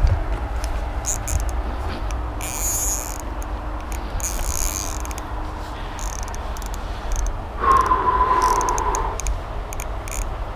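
Insects chirping in short high-pitched bursts over a steady low rumble, with a brief whine, falling slightly in pitch, lasting about a second and a half near the end.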